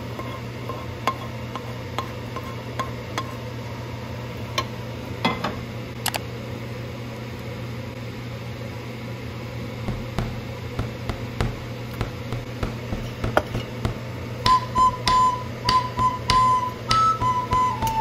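Occasional light knocks and clinks of a stainless steel pot and metal cookie cutter set down on a stone counter over a steady low hum. About three-quarters of the way through, light flute-like background music begins and becomes the loudest sound.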